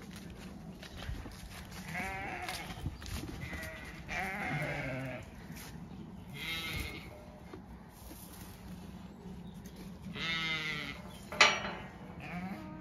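Zwartbles sheep bleating, several wavering calls spread out with pauses between them, and a sharp, louder sound about a second before the end.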